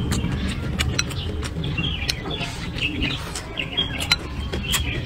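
Close-miked chewing with many short wet mouth clicks, over a steady low rumble; birds chirp from about two seconds in.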